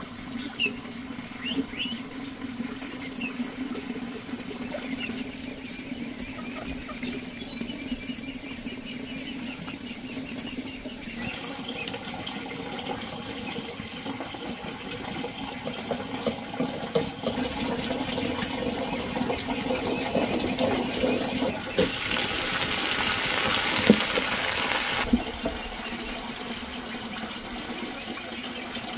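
Food sizzling over a charcoal fire: meat hissing softly on a wire grill, then about three seconds of much louder sizzling as green vegetables are stirred in a hot wok.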